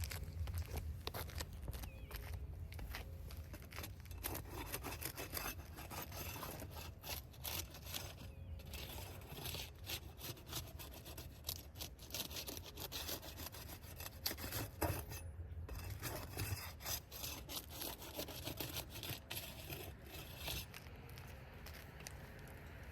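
Roof shingles being unsealed: a tool scraping and rasping under the shingle tabs in quick, irregular strokes as it breaks their adhesive seal, over a steady low rumble.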